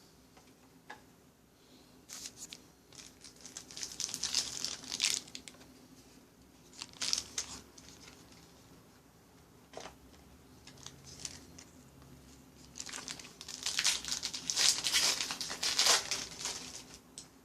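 A trading-card pack wrapper being torn open and crinkled, with crackling in short bouts and a longer, louder bout near the end.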